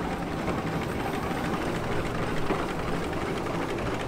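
A Sentinel steam waggon running steadily, an even mechanical sound with no marked change in level.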